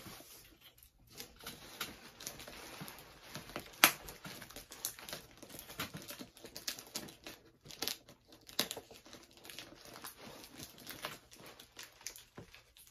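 A cardboard package being cut and torn open by hand. The packaging crinkles and rustles, with irregular scrapes and clicks and one sharper snap about four seconds in.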